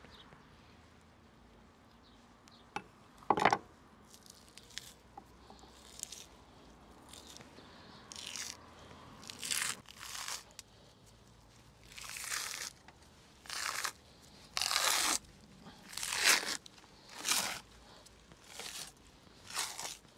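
A knife cutting through crisp raw vegetables: short separate cuts, a few at first, then a steady run of one about every second from about eight seconds in.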